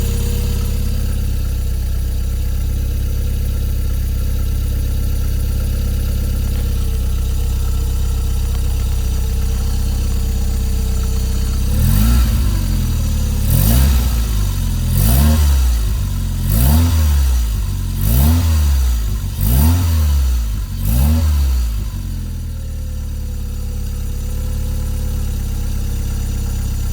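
Toyota MR2's turbocharged 3S-GTE four-cylinder engine idling, then revved seven times in quick succession about a second and a half apart, each rev rising and falling back, before settling to idle again. The engine has a clicking noise that the owner cannot identify.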